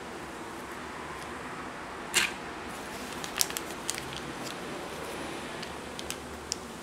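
Kitchen knife cutting through a Basque burnt cheesecake and working against the parchment paper under it: one louder scrape about two seconds in, then scattered light clicks and crackles as the slice is eased away, over a steady hiss.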